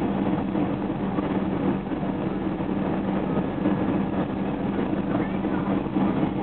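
Steady airliner cabin noise during the landing approach: the even drone of the engines and airflow with a low hum.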